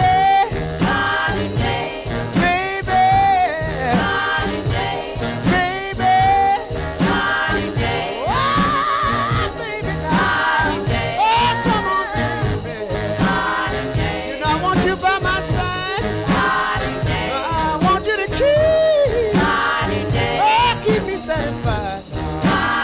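Background music: an upbeat song with a singing voice over a steady beat.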